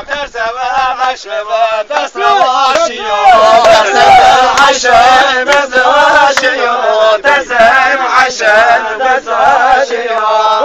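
Male voices singing a Zaza-language halay folk song in a continuous, wavering chant-like melody.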